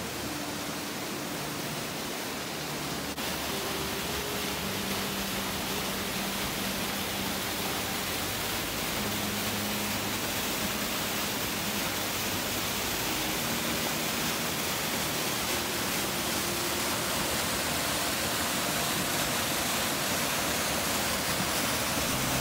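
Rushing water of a small woodland waterfall cascading down a rocky gully: a steady, loud hiss.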